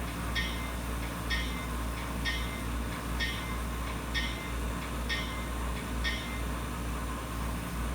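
Sound-equipped model CSX diesel locomotive ringing its bell about once a second, seven strokes that stop near the end, over a steady low engine rumble.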